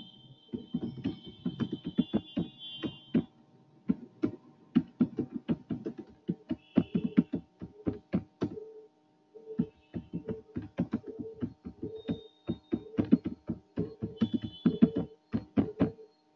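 Typing on a computer keyboard: irregular keystroke clicks, several a second, with a few brief pauses. A faint steady electrical hum runs underneath.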